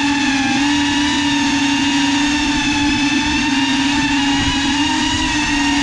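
FPV quadcopter's motors and propellers whining steadily, heard close from the GoPro on board, the pitch wobbling slightly as the throttle shifts.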